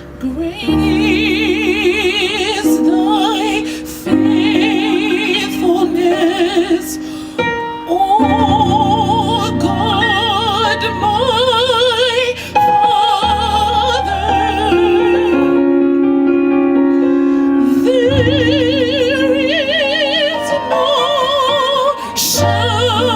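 A woman singing a slow gospel song in long held notes with strong vibrato, over sustained keyboard chords that change every few seconds.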